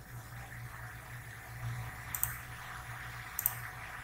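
Two short doubled clicks of a computer mouse, about a second apart, over a steady low hum and faint hiss.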